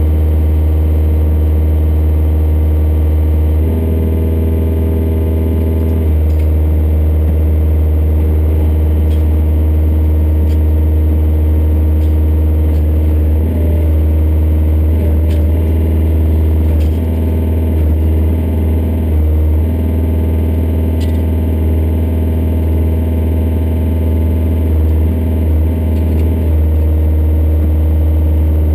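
Yanmar Vio57 mini excavator's diesel engine running, heard from inside the cab as a steady low hum, its note stepping up and down several times as the hydraulics are worked to lift curb stones. A few light clicks sound over it.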